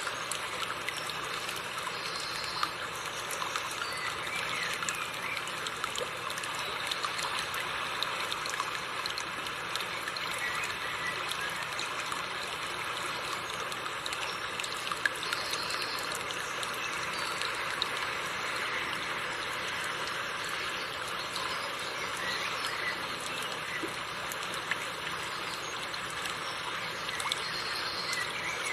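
River water running over rocks, a steady even rush with small trickles and splashes.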